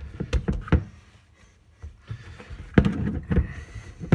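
Sticky pizza dough being kneaded fast by hand in a plastic mixing bowl: quick thumps and squelches as the hand turns the dough and presses it against the bowl, with a pause of about a second after the first few strokes.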